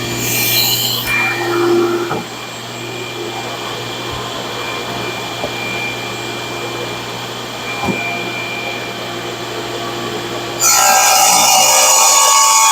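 Table saw running and ripping a thick black walnut slab, a steady motor hum with a thin whine. About ten and a half seconds in the cut gets much louder and harsher.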